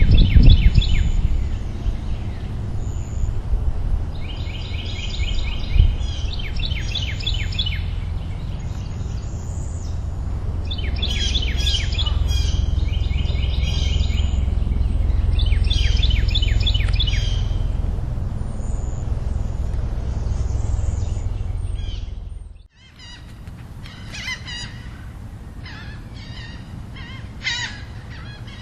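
Songbirds singing in repeated short phrases every few seconds over a low steady rumble. About 22 seconds in the sound cuts off sharply, and a quieter stretch of scattered high chirps follows.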